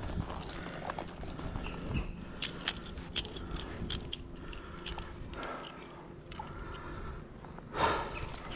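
Tree climber's spurs and lanyard hardware clicking and scraping against the trunk in scattered sharp ticks, with the climber breathing hard. A louder scrape comes near the end.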